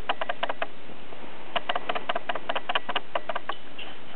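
A bristle pet brush scratching through a cat's fur in quick runs of short strokes, with a pause about a second in.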